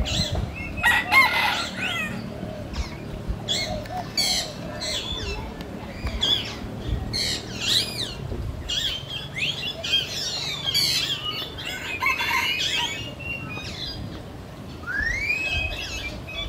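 Several birds chirping and calling over one another in many short, sharp calls and trills, with a rising whistled call near the end.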